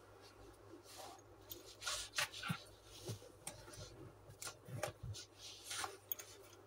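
Scattered soft knocks, clicks and rustling of things being handled close to the phone, with a few dull thumps in the middle.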